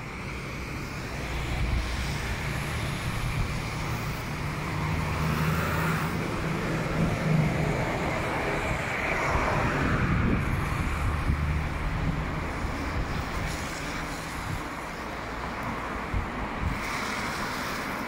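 Street traffic on wet roads: engines and tyre hiss, with one vehicle passing close about halfway through. Wind buffets the microphone.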